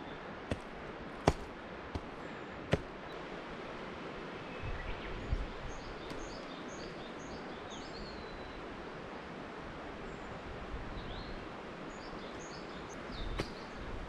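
Steady rushing of flowing water, with small birds chirping in short high notes around the middle and again near the end, and a few sharp clicks in the first few seconds.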